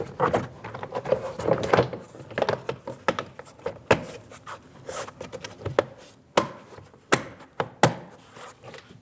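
Plastic interior door trim panel being rubbed and shifted into place against the door, then a series of sharp clicks and knocks from about four seconds in as its plastic retaining clips are pressed home.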